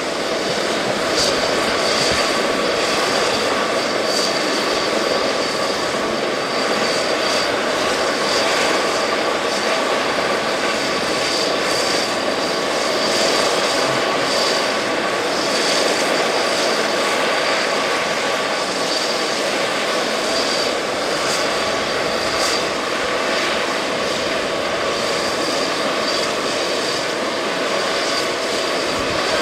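Medical helicopter's turbine engines running steadily while it sits on the ground: a constant high whine over an even rushing noise.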